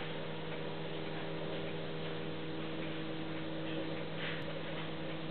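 Steady hum of several held low tones over a constant hiss.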